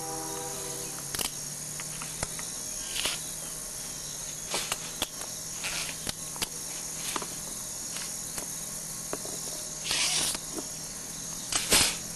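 Scattered sharp clicks, light knocks and a few short scrapes from hand tools working at the seal of an HHO electrolysis cell as it is opened, the loudest scrapes about ten seconds in and just before the end, over a steady high background hum.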